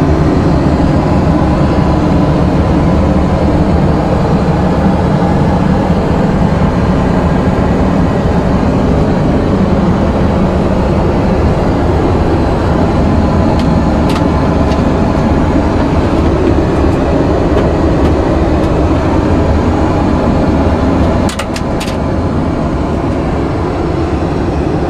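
Steady roar of engines and airflow inside a Boeing 737-800 cabin in cruise. A few faint clicks come about halfway and again near the end, where the roar drops slightly in level.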